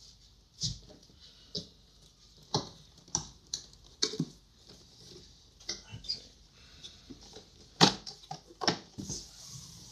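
Large cardboard drone box being handled and opened: irregular knocks, taps and scrapes of the flaps and lid, with two louder knocks about eight seconds in and a short rustle near the end.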